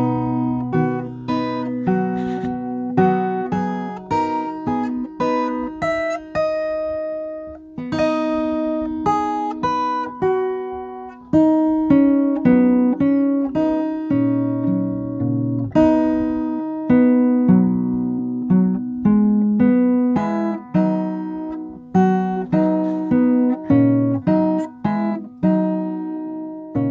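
Acoustic guitar music: single plucked notes and chords, each ringing out and fading, a few notes a second.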